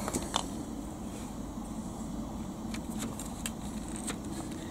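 A few light clicks and taps of plastic parts being handled as a small geared motor is fitted into a toy excavator's plastic track frame. A steady low drone of distant machinery runs underneath.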